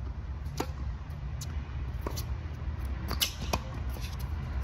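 Tennis ball struck by a racket on a serve, then a rally of sharp knocks from ball strikes and bounces, about five in all, the loudest a little past three seconds in. A steady low rumble runs underneath.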